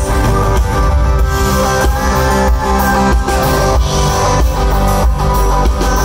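Rock band playing live through a theater PA: an instrumental passage of strummed guitars over a steady drum beat and heavy bass, with no singing.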